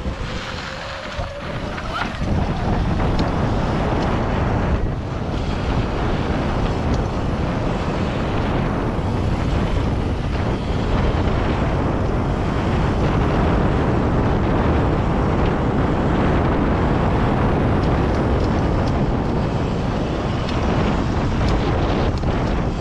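Electric dirt bike under way on a gravel trail: heavy wind buffeting on the microphone with tyre and gravel rumble. A thin motor whine rises about two seconds in as the bike pulls away.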